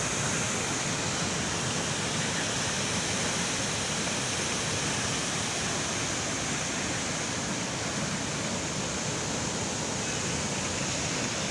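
Floodwater rushing in a rain-swollen stream, a steady, unbroken noise.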